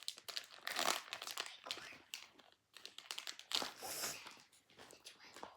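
Foil wrapper of a football card pack crinkling and crackling as it is handled and torn open, with a brief lull about two and a half seconds in.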